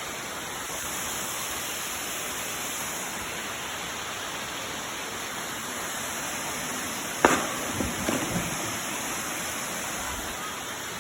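Steady rush of a waterfall, with a sharp knock about seven seconds in and a few fainter knocks after it.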